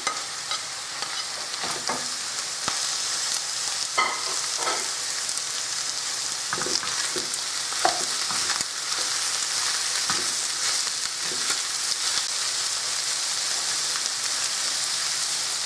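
Chicken and sliced vegetables, bell peppers among them, sizzling steadily in a non-stick wok as they are stir-fried with a plastic slotted spoon. The spoon knocks and scrapes against the pan every second or two.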